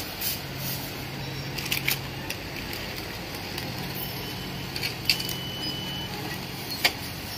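Plastic carrier bag and plastic snack packets rustling and crinkling as groceries are packed, with a few sharp crackles scattered through, over a low hum. A thin steady high tone sounds for about two seconds midway.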